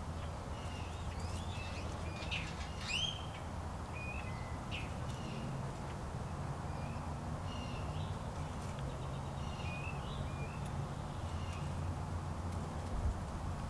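Small birds chirping in short, scattered calls, with a few quick rising notes about three seconds in, over a steady low background rumble. A brief low thump comes near the end.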